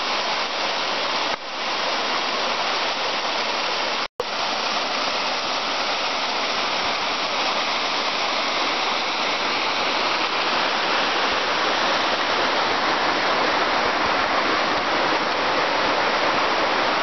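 Small mountain waterfall, Becky Branch Falls, with water pouring and splashing in a steady loud rush, broken once by a sudden brief dropout about four seconds in.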